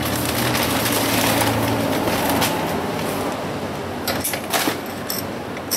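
Steady street-traffic noise with a low engine hum, then a few short metallic clicks about four seconds in and once more near the end as a new motorcycle chain is worked link by link onto the rear sprocket.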